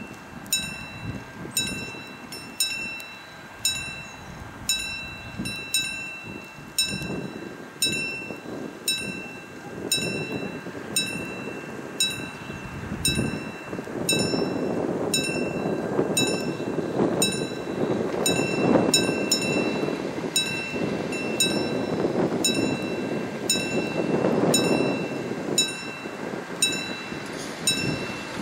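Level-crossing warning bell ringing with bright metallic strikes about once a second, some doubled, the warning that the crossing barriers are about to lower. About halfway through, a louder low rumbling noise builds up underneath.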